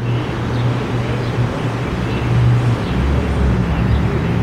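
Steady low rumble with a hum under it, the outdoor urban background noise picked up by a compact camera's built-in microphone.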